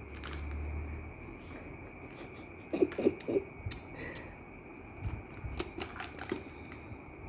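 Scattered light clicks and taps of small toys being handled, with three short voice-like sounds about three seconds in.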